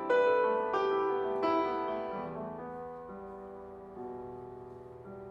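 Solo piano music: several chords struck in the first second and a half, then held notes ringing on and slowly fading, with a few softer notes later.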